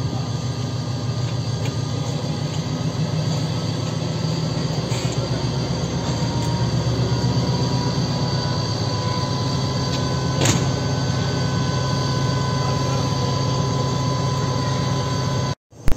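FS D445 diesel locomotive's engine idling steadily at a standstill during uncoupling, a low throbbing hum, with a single sharp click about ten seconds in. The sound cuts off suddenly just before the end.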